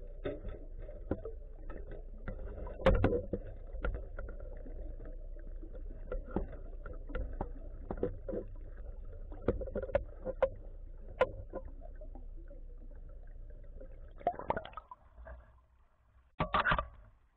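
Underwater sound heard through a camera housing at a boat's dive ladder: a steady low rumble with scattered clicks and knocks. Near the end it gives way to two short splashes as the camera breaks the water's surface.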